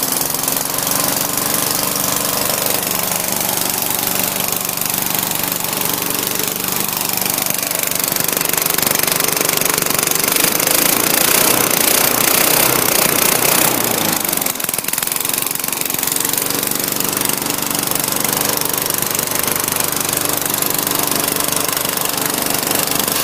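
Tecumseh 3.5 hp single-cylinder engine on an MTD 21-inch push mower running on a warm start, its pitch rising for a few seconds near the middle. A scratching noise comes from the blade brake disengaging and hitting the flywheel.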